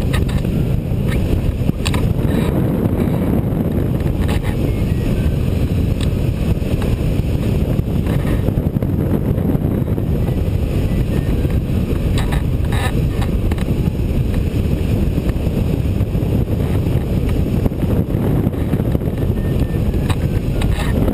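Steady rush of airflow over the microphone of a rigid-wing hang glider in flight: a heavy, even low rumble with a few faint crackles.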